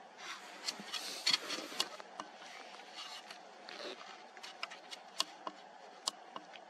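Faint rustling with many scattered sharp clicks and short crackles, densest about one to two seconds in: handling and movement noise close to the microphone, not sound from the wolves.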